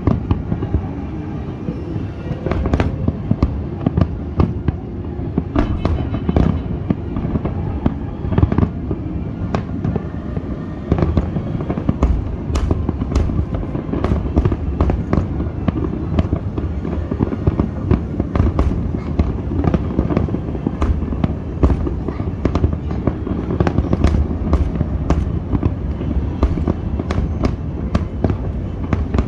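Fireworks display: a dense, unbroken barrage of shell bursts, many sharp bangs and crackles over a steady low rumble.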